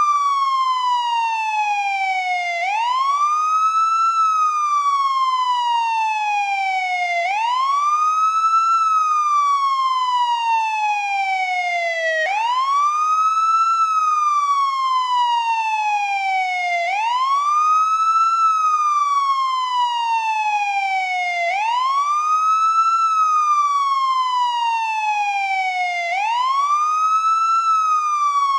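American police siren in wail mode, swooping up quickly and then sliding slowly back down, over and over, each cycle about four and a half seconds long.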